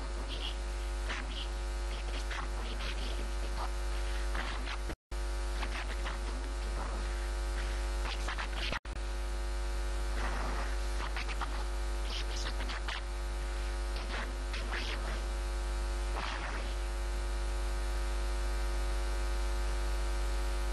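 Steady electrical mains hum with many even overtones, cutting out twice for an instant, about five and nine seconds in. Faint scattered ticks and rustles sit under it.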